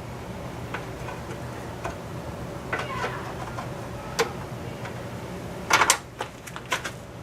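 Scattered light clicks and taps of tools and parts being handled while the car's front end is taken apart, with a louder cluster of clicks a little before the end, over a steady low hum.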